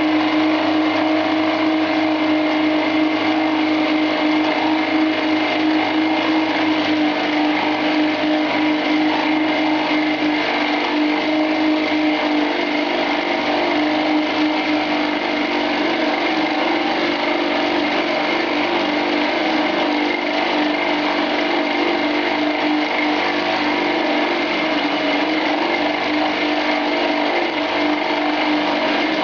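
Chinese 10 x 18 bench lathe spinning a 20 mm carbide-insert milling cutter at about 2000 RPM through a 1.5 mm cut in medium-to-high carbon steel. It makes a steady machine whine with several held tones over the noise of the cutting, and is working pretty hard.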